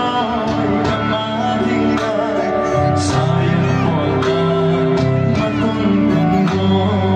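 Male singer singing a Ranglong song into a microphone over amplified backing music with a steady beat.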